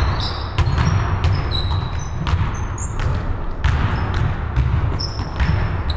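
Basketball being played on a hardwood gym floor: sneakers squeak in short high chirps as players cut and stop, and the ball bounces and thuds in a string of sharp knocks, echoing in the large hall over a low rumble.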